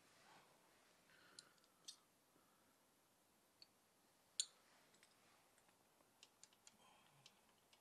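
Near silence with a few faint, scattered clicks and taps of tools and small parts being handled during engine work, the sharpest about four and a half seconds in.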